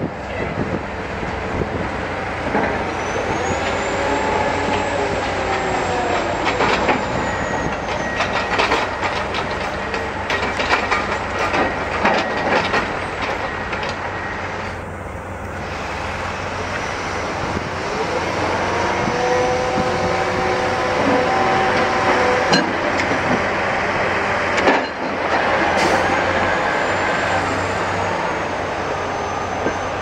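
Heavy diesel construction machinery working: a steady engine hum, with engines revving up and back down twice, a thin high whine, and a stretch of rapid metallic clanking and knocking, then a single loud knock late on.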